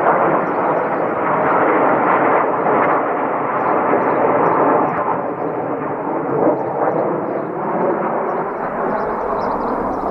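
Formation of Northrop F-5E Tiger II jets, each powered by twin General Electric J85 turbojets, flying past with a loud, steady roar.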